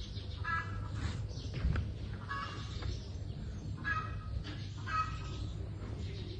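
Fowl honking in short calls, about four times, over a steady low hum.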